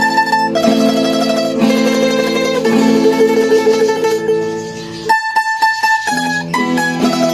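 Background music led by plucked strings, starting abruptly. The low notes drop out for about a second around five seconds in, then the full sound comes back.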